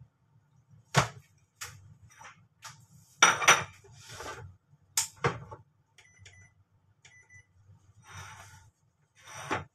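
Electric rice cooker and dishes handled on a kitchen counter: sharp knocks and clinks as the lid is shut and things are set down, then two short electronic beeps about a second apart from the cooker's buttons, and a last clatter near the end.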